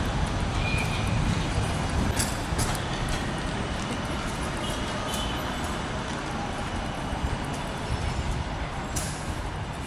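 Steady low rumble and hiss of a large airport terminal hall, picked up on a moving phone, with a few faint clicks.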